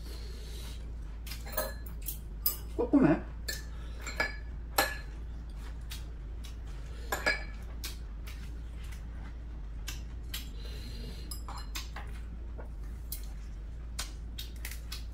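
Scattered clinks and taps of chopsticks and spoons against ceramic bowls and plates during a meal, with a steady low hum underneath.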